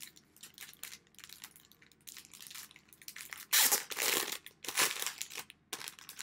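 Plastic packaging crinkling and rustling in the hands as a packet is handled and opened, in irregular bursts that are loudest a little past halfway.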